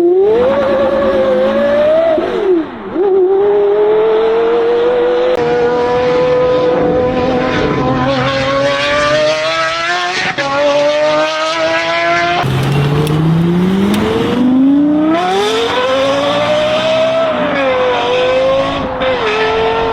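A high-revving car engine accelerating hard, its pitch climbing and dropping again and again as it is revved and shifted, with abrupt cuts between recordings about five and twelve seconds in.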